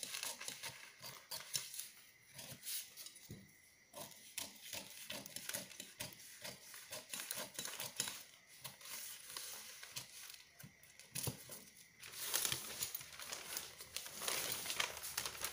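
Large tailor's shears cutting through two layers of pattern paper, a string of short snips with the paper crackling. About twelve seconds in, the cutting gives way to the louder rustle of large paper sheets being lifted and moved.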